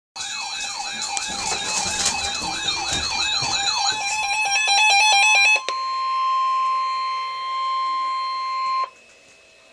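Electronic emergency alert tones. First a fast warbling siren, then a brief stutter of rapidly alternating beeps. Then comes the steady single-pitch 1050 Hz NOAA Weather Radio warning alarm tone, held for about three seconds before it cuts off abruptly, signalling that a warning message follows.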